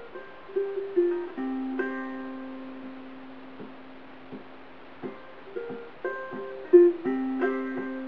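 Covered Bridge tenor ukulele, redwood top with myrtle back and sides and Worth Clear strings, played solo: a picked bluegrass-style melody of single notes over a low note left ringing for several seconds, struck twice.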